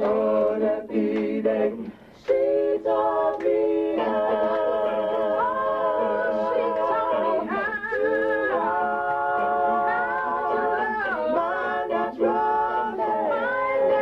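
Several voices singing a cappella in a small group, holding long notes together, with a brief break about two seconds in.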